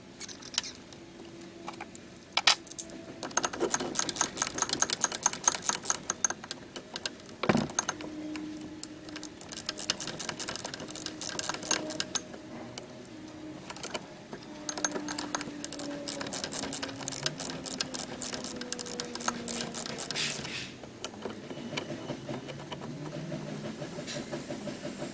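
Hand tools working on metal engine parts: several bursts of rapid, even metallic clicking, about a few seconds each, with scattered clinks and knocks between them.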